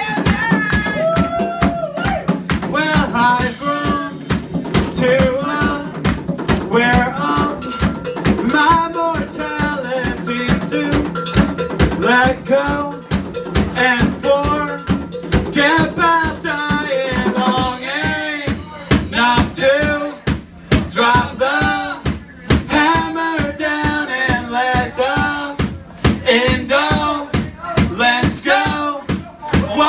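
Live band playing: banjo, acoustic and electric guitar over a drum kit keeping a steady beat.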